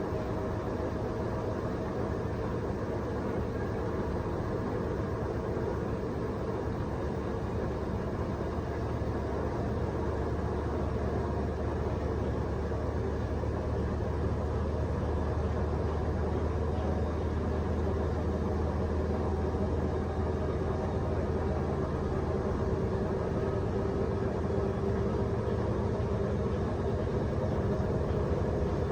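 Beko front-load washer-dryer running: a steady mechanical hum with a low drone and a faint whine, getting slightly louder over the span.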